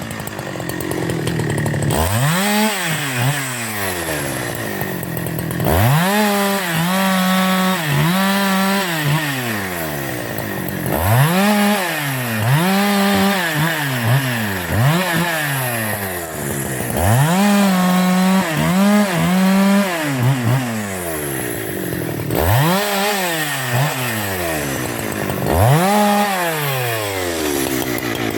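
Husqvarna 372 XP two-stroke chainsaw being revved over and over: the throttle is opened so the engine climbs to full speed, then released so it falls back, every second or two. A few times it is held at full revs for a second or two before dropping.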